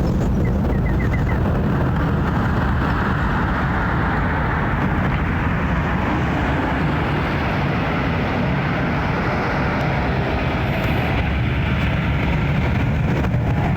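Jet airliner climbing out overhead: a steady low rumble with a broad roar that swells through the middle and fades away near the end.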